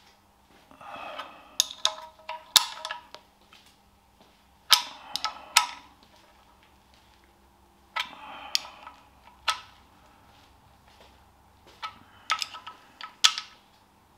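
Spanner clicking against the sump bolt heads of a Ferguson TE20 engine as each bolt is nipped up a fraction of a turn. Bursts of sharp metallic clicks come in about five groups, with quiet gaps between them.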